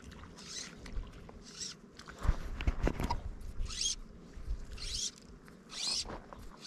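Fly line stripped in by hand through the rod's guides during a popper retrieve, a short zipping hiss with each pull about once a second: two pulls, a pause, then three more. A few low knocks, the loudest sounds here, fall in the pause about two seconds in.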